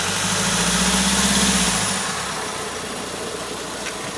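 A vehicle engine running, with a low hum that swells louder over the first second and a half and then drops away about two seconds in, leaving a steady background noise.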